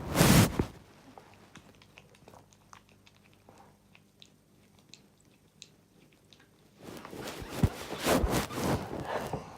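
A person's sneezing fit: one sharp sneeze right at the start, a quiet pause with a few faint clicks, then loud gasping breaths and another sneezing burst from about seven seconds in.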